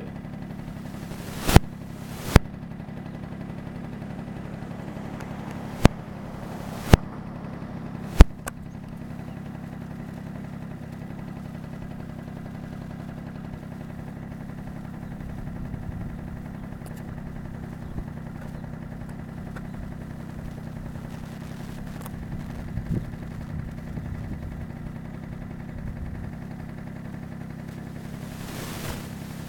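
A steady low hum broken by five sudden, very loud clicks in the first eight seconds, typical of the audio fault the uploader warns about after upload.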